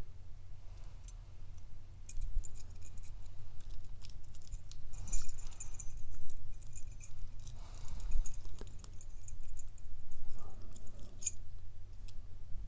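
Small metallic clicks and light rattling as a round-bodied padlock is turned over and worked by hand, with its core and parts shifting inside.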